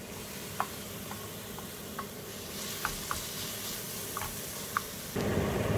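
Ground meat sizzling in a frying pan, a steady hiss with scattered small pops. Near the end a louder, lower noise takes over.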